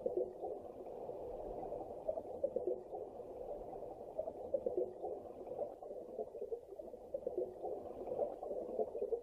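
Muffled underwater bubbling and gurgling, steady throughout, as an ambient sound effect.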